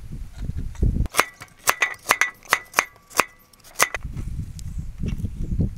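A cleaver chopping food on a round wooden chopping board: about a dozen sharp chops a few a second, the blade ringing faintly, from about a second in to near the four-second mark. A low rumbling noise comes before and after.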